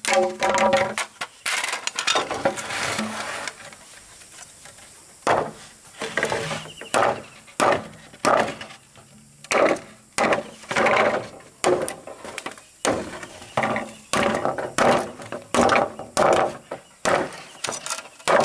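Repeated sharp blows on wood with a tool, irregular at about one to two strikes a second, with a short pause about four seconds in; some strikes ring briefly.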